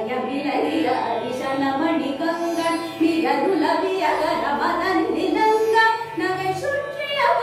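A woman singing a Carnatic vocal phrase, her voice sliding between notes, over a steady drone.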